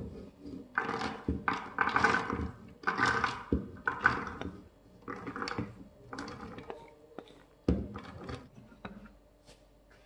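Soaked soybeans scraped with a wooden spatula out of a metal colander, sliding and tumbling into a plastic blender jug in short pours about a second apart, with a few sharp knocks along the way, the loudest about three-quarters through.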